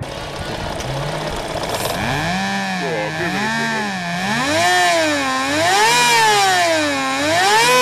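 Supercharged Toyota Supra's 3.0-litre twin-cam straight-six revved up and down over and over, its pitch rising and falling in smooth waves about every second and a half from about two seconds in.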